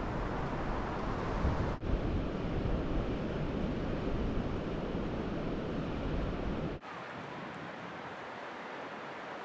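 Ocean surf washing onto a beach, with wind rumbling on the microphone. The sound cuts abruptly twice; after the second cut, about three-quarters of the way in, the wind rumble drops away and the surf is quieter.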